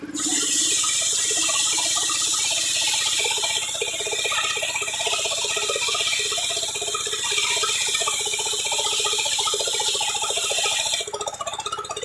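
Large belt-driven bench circular saw ripping a plank lengthwise: a loud, steady cutting noise that starts at once and cuts off about a second before the end, as the plank clears the blade and the saw spins free.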